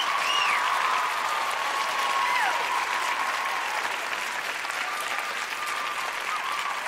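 A crowd applauding, with whistles that slide up and down and some held whistle tones over the clapping.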